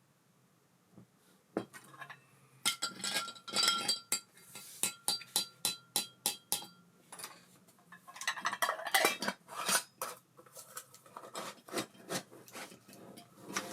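Small metal reel parts and hand tools clinking and clicking against each other while an Abu Garcia Ambassadeur 5500C baitcasting reel is being serviced. The clicks come in a rapid irregular run starting about a second and a half in, some ringing briefly.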